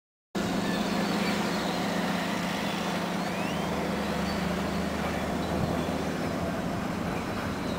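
Steady drone of a heavy vehicle engine running, over a noisy outdoor background with a few faint high chirps. The sound cuts in abruptly just after the start.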